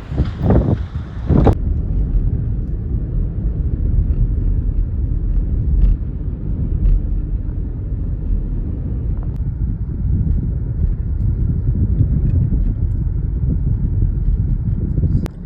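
Steady low rumble of a vehicle running. A few louder bursts of noise in the first second and a half cut off sharply.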